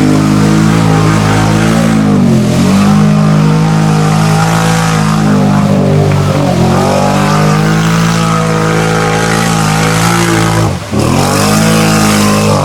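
ATV engine revving hard under load in a mud hole, its pitch held high with two brief drops as the throttle comes off and back on: once about two seconds in and once near the end.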